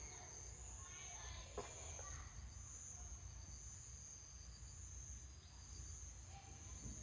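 Faint outdoor background after the chime has finished: insects making a steady, high, pulsing trill over a low rumble. A single short click comes about a second and a half in.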